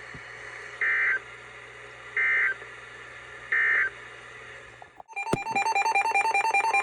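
Emergency Alert System end-of-message data bursts: three short, harsh warbling digital bursts about 1.3 s apart over a low background hum, closing the severe thunderstorm warning. About five seconds in, music with a repeating keyboard pattern starts.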